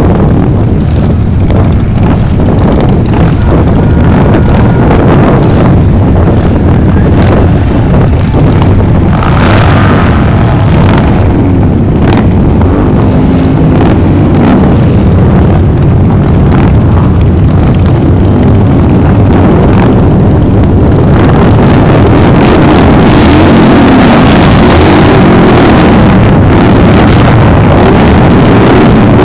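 A long procession of large cruiser and touring motorcycles riding past one after another, their engines making a loud, continuous low rumble.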